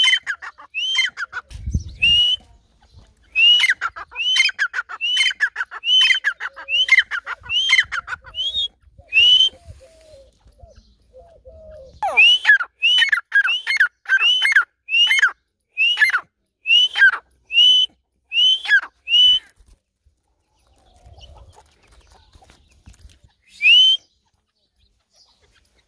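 Irani teetar (a partridge) calling: a long string of loud whistled notes, each rising sharply and then falling away, about two a second. The string breaks off about ten seconds in, starts again in a second run at about twelve seconds, and a single last call comes near the end.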